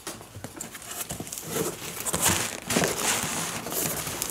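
Cardboard shipping carton being opened by hand: cardboard flaps scraping and crumpled white packing paper rustling, growing busier and louder after about a second and a half.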